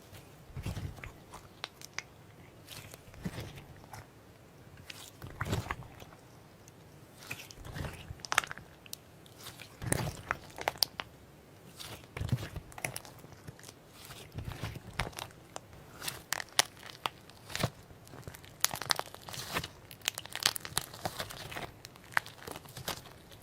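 Slime being squished and poked, giving irregular clicks and crackling pops that come thicker in the second half.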